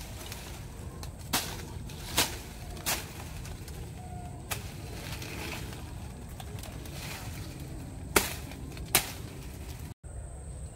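Machete chopping through dry grass and brush stalks: six sharp cuts at uneven intervals, with the vegetation rustling between them.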